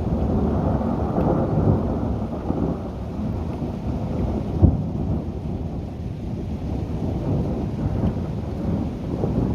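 Thunder rumbling on and on during a thunderstorm, with rain, and a sharper crack about halfway through.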